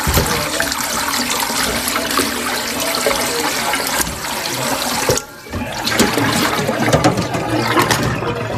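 Kitchen tap running and splashing into a sink while raw chicken thighs are rinsed, with a brief break about five seconds in.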